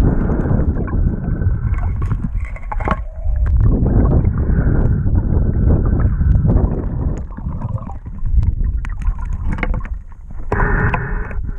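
Moving river water heard on a camera's microphone while diving: a steady low churning rumble with scattered sharp clicks and knocks.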